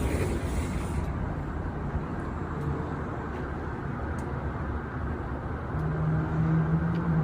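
A loud, steady low rumbling hum of unknown origin, the kind reported as a strange hum from the sky, felt as much as heard. A faint higher tone comes in briefly midway, and a lower steady tone joins near the end.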